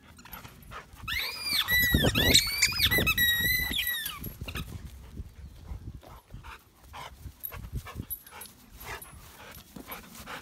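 Rubber squeaky dog toy squeaked over and over in a chocolate Labrador's mouth: a quick run of rising-and-falling squeaks starting about a second in and lasting about three seconds, then only softer scattered clicks.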